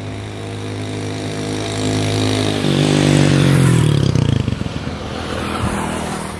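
Motorcycle engine running, then revving up and growing louder about three seconds in, with rising wind and road hiss, before easing off near the end.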